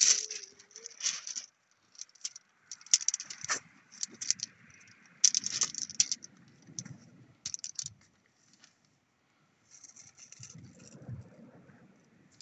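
Shingle pebbles clattering and crunching in short, irregular bursts as someone kneels on them and handles a small dogfish lying on the stones while unhooking it. A low rumble runs underneath at times.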